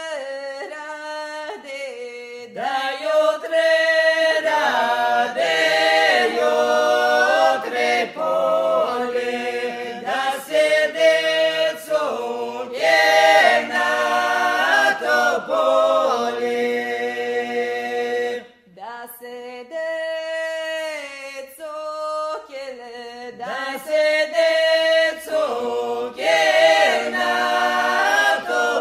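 Unaccompanied group singing of a folk song, voices in long held phrases, with a short break about two-thirds of the way through.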